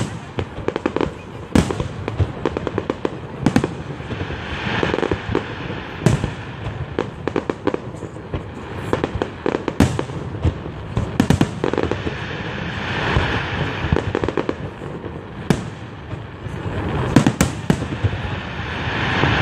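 Fireworks display: aerial shells bursting close overhead in quick succession, a string of sharp bangs, at times several a second. Between the bangs come swelling stretches of dense hiss.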